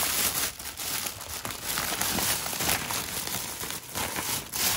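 Thin plastic carrier bag crinkling and rustling in uneven bursts as hands open it and grip the plastic-wrapped sack of rice inside.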